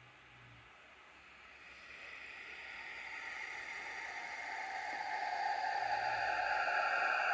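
Radio static: a rushing hiss that starts faint and grows steadily louder, loudest near the end.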